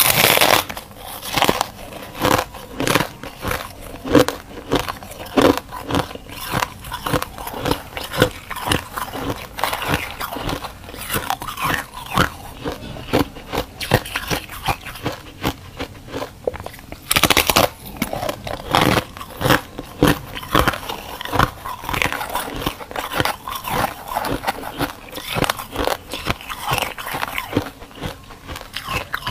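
Close-miked biting and chewing of brittle freezer frost: repeated crisp crunches, with heavy bursts at the first bite and again about 17 seconds in.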